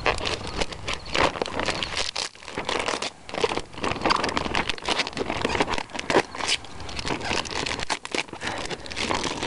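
Plastic hoop house curtain sheeting crinkling and rustling as it is handled around its roll-up pipe, an irregular run of crackles throughout.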